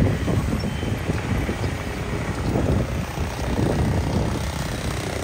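Low, steady rumble of city street traffic.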